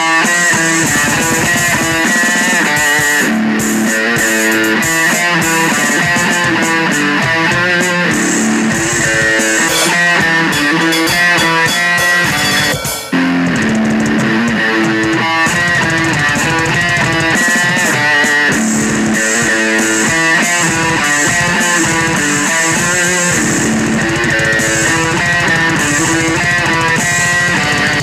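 Rock song with electric guitar riffs and bass over a drum kit played hard with cymbals. The music breaks off briefly about thirteen seconds in, then comes back in.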